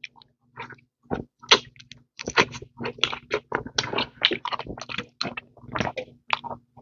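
Close-miked eating of a seafood boil: wet chewing, smacking and crackling mouth sounds in a quick, irregular run of short clicks.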